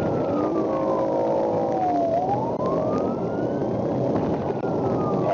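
Emergency-vehicle siren in a slow wail: its pitch falls, rises and starts to fall again, each sweep about two seconds long, over steady road and engine noise. A steady lower tone sounds with it for about two seconds near the start.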